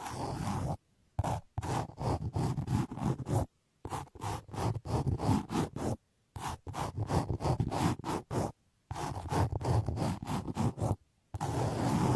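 Rapid scraping and rubbing strokes against a binaural ASMR microphone, in quick runs of short strokes broken by brief pauses.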